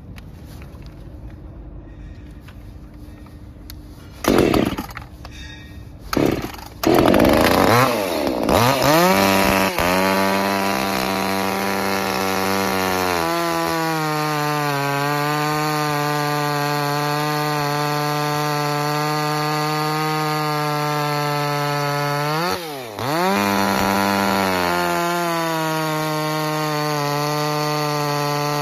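Small 25cc two-stroke top-handle petrol chainsaw being pull-started: two short bursts, then it catches about seven seconds in and revs up. It then runs at steady high revs with its chain cutting through a thick log, the engine pitch dipping sharply and recovering once about two-thirds of the way through.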